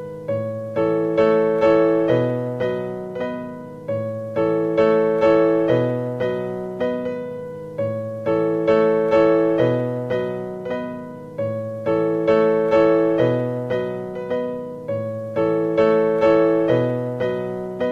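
Piano music: a gentle phrase of struck notes, two or three a second, repeated about every four seconds.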